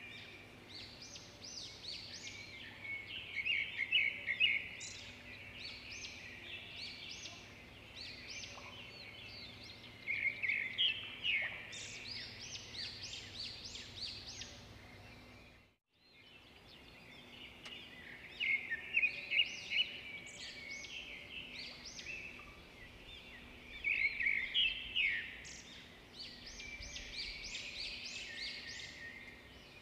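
Many small birds singing and chirping at once, a dense chorus of short high calls that swells and fades in clusters. About halfway through the sound drops out completely for a moment.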